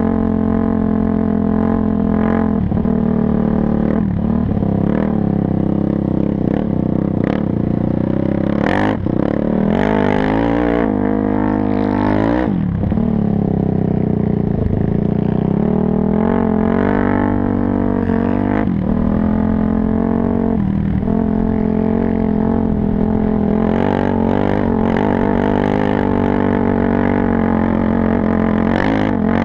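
An ATV engine running under load while riding over sand, its pitch rising and falling with the throttle and dropping sharply several times as the throttle is let off or the gears change.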